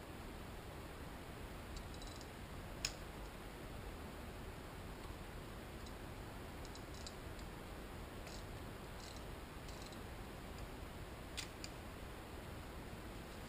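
Light metallic clicks and clinks of a motorcycle cam chain and small engine parts being handled, with two sharper clicks, one about three seconds in and one near the end, over a steady low hiss.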